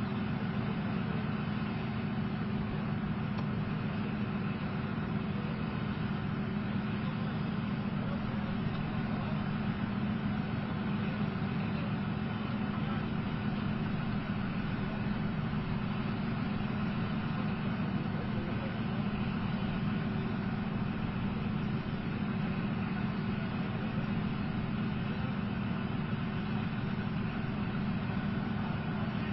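Leopard 2A4 tank's V12 diesel engine idling, a steady low hum that holds the same pitch throughout.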